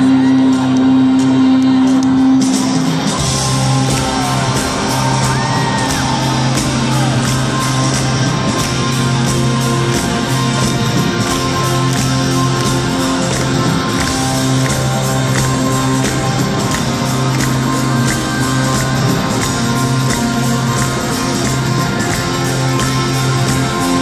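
Live rock band playing electric guitars over sustained chords, with a steady drum beat coming in about two seconds in. Heard from the audience in a large hall.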